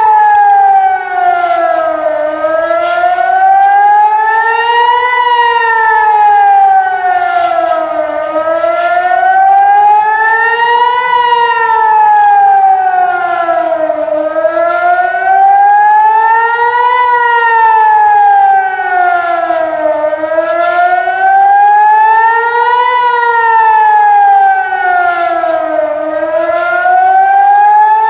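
Civil-defence warning siren sounding its rising-and-falling wail. The pitch climbs for about three seconds and falls for about three, over and over. This wavering tone is the Israeli public alert for an incoming rocket attack, telling people to take shelter.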